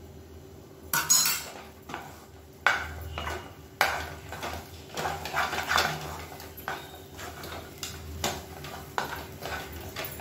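Wooden spatula stirring and scraping a thick, sticky aval (flattened rice) dough around a nonstick pan, in irregular strokes with occasional knocks against the pan.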